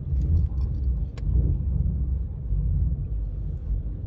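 Low, uneven rumble of a car heard from inside its cabin, with a faint click about a second in.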